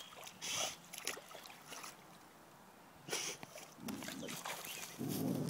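A boxer dog moving in shallow river water at the bank, with a few short, scattered splashes and a quiet moment in between.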